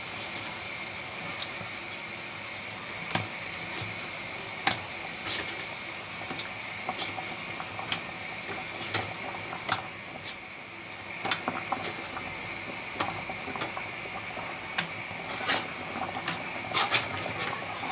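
Water boiling in a frying pan, a steady hiss, with scattered sharp clicks and taps about once a second that crowd together near the end.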